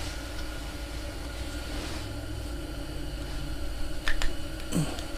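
Steady low hum with hiss and several steady tones. About four seconds in there are a few sharp clicks, followed by a short sound falling in pitch just before the end.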